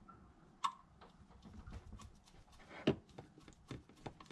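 Quiet clicks and scrapes of a small screwdriver turning a screw in the screw terminal of a plastic LED light controller, tightening a wire down; two sharper clicks, about two-thirds of a second in and near three seconds.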